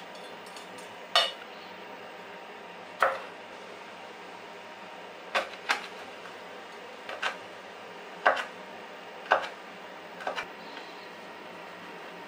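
Kitchen knife knocking on a bamboo cutting board as a red chili is sliced: about eight separate sharp knocks, unevenly spaced.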